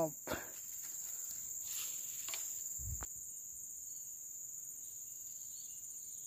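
Insects droning in a steady high-pitched chorus, with a few faint clicks and a short, soft thump about three seconds in.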